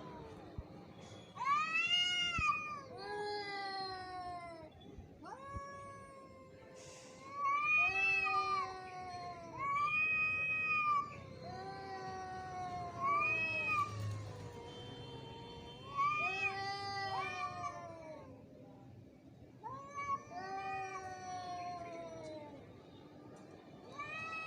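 Angry cat yowling in a string of drawn-out calls, about a dozen, each rising and then falling in pitch, with short gaps between them: the threatening caterwaul of a cat fight.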